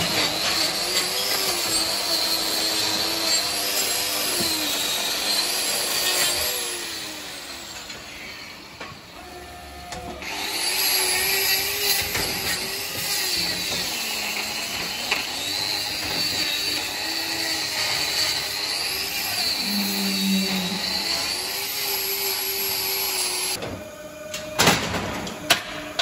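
Electric angle grinder with a hoof-trimming disc cutting into a cow's hoof, its pitch sagging and recovering as the disc bites. It runs in two long spells with a quieter pause of about three seconds between them, and a few sharp knocks follow near the end.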